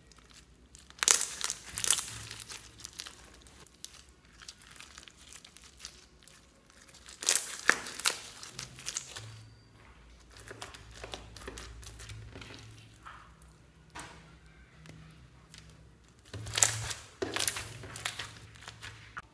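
Clear slime packed with small plastic beads being squeezed and pressed by hand, crackling and popping with many quick clicks. The crackling comes in three loud bursts, about a second in, about seven seconds in and near the end, with quieter crackling between.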